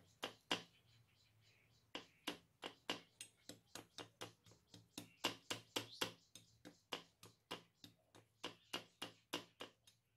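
Flat steel spatula patting down on soft coconut barfi in a steel tray, pressing the almonds and raisins into it: a faint, steady run of soft taps, about three a second.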